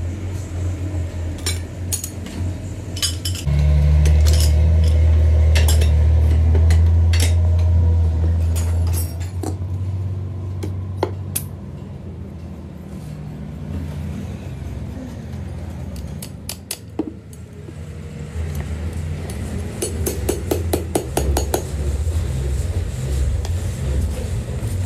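Steel parts of a bottle hydraulic jack clinking and tapping as they are handled and fitted together, with a fast run of small clicks about twenty seconds in. Under it a steady low rumble runs throughout and is loudest between about three and nine seconds in.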